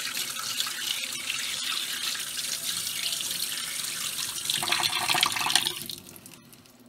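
Tap water running into a stainless steel sink and splashing over hands and a small metal lamp part being rinsed of steel-wool and rust residue. The splashing gets louder near the end, then the water sound drops away about six seconds in.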